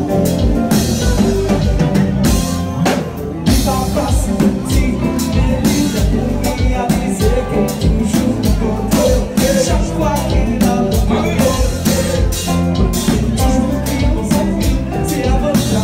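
Haitian konpa band playing live, with a drum kit keeping a steady beat under a singing voice.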